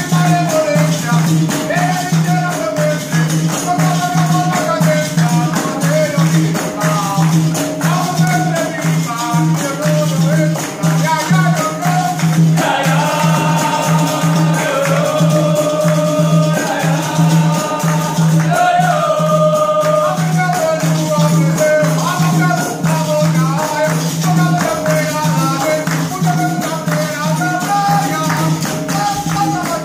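Capoeira roda music: berimbaus and a pandeiro playing a steady rhythm with an atabaque drum, the group singing and clapping along. Several voices sing together from about twelve to twenty seconds in.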